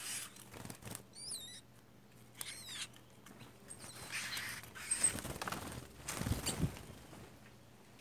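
Small garden birds at a feeding perch: two short, high squeaky calls in the first three seconds, then wing flutters as birds take off and land, with a louder flurry of flapping about six seconds in.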